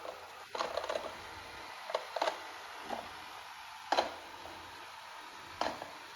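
Amarey A90+ robot vacuum running: a steady hiss from its suction fan and brushes, with about half a dozen sharp clicks and knocks at uneven intervals as it moves about.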